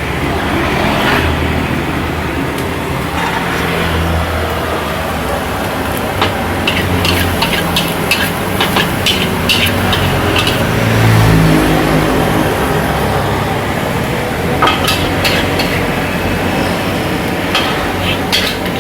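Noodles frying in a wok with a steady sizzle, and a metal spatula clanking and scraping against the wok in runs of quick strikes through the middle and again near the end, over a low rumble.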